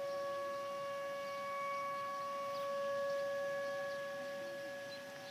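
Distant outdoor warning sirens sounding a steady, unwavering tone that slowly swells and fades in loudness, peaking about three seconds in.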